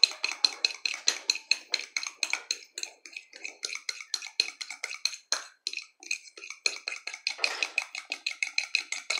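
A utensil beating egg and sugar in a glass bowl, clicking against the glass in a rapid, even rhythm of about six or seven strokes a second. The mixture is being whisked into a gemada (egg nog).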